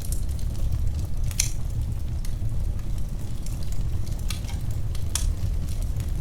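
Wood fire in a fireplace crackling: a steady low rumble of the flames with scattered sharp pops and snaps, the loudest about a second and a half in.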